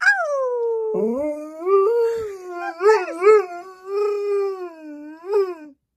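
Alaskan Malamute howling one long, wavering howl. It opens on a high note that slides down, rises again about a second in, warbles a few times, then stops suddenly near the end.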